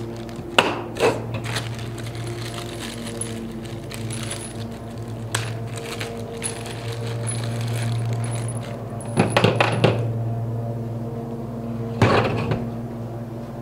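Small bags of trimmer hardware (bolts, nuts, washers) being handled: plastic bags crinkling and small metal parts clinking, with sharp clicks and knocks of the trimmer's plastic parts, the loudest cluster about nine to ten seconds in and another near twelve seconds. A steady electrical hum runs underneath.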